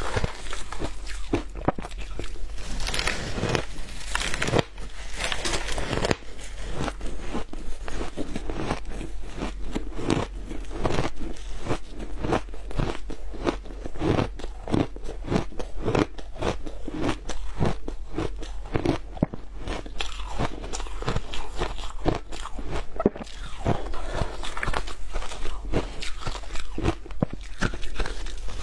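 Frozen shaved ice being bitten and chewed, a dense, continuous run of crisp crunches.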